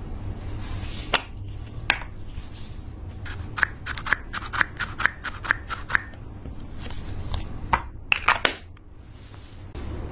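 Plastic pump dispenser on a liquid-foundation bottle clicking as it is pressed again and again to squirt out dollops. There is a quick run of about eight clicks in the middle and a few scattered clicks before and after, over a low steady hum.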